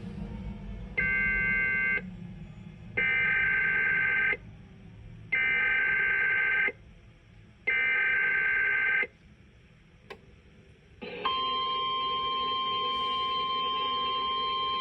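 Emergency Alert System test over the radio: four short bursts of screechy SAME digital header data, each about a second long with brief gaps between, then about eleven seconds in a steady single-pitch alert tone starts and holds. The steady tone is the 1050 Hz NOAA Weather Radio tone-alert signal.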